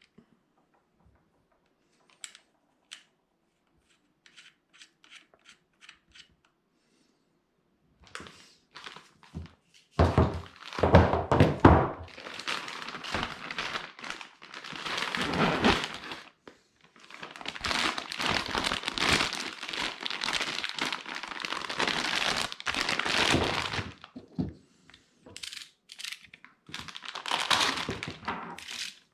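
Fronius TransSteel 2700 C welding arc crackling in runs of several seconds with short breaks, starting about eight seconds in after a few light clicks.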